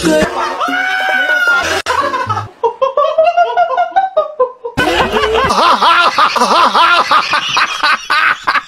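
Laughter, which becomes a quick run of rapid, repeated laughs about five seconds in.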